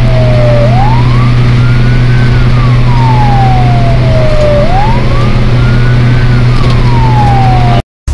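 Fire truck siren wailing, its pitch rising quickly and then falling slowly, twice, over the steady drone of the truck's engine, heard from inside the cab. The sound cuts off suddenly near the end.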